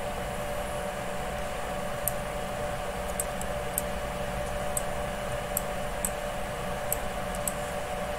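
Steady background hum with a couple of faint steady tones in it, crossed by faint sharp ticks roughly once a second at irregular spacing.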